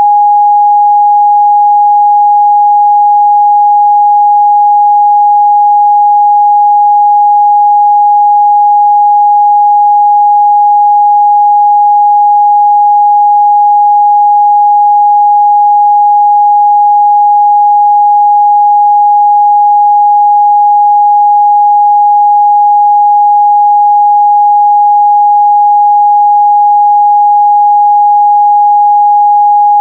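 A pure 826 Hz sine test tone, held steady and loud at a single pitch, used for checking the midrange response of speakers and headphones.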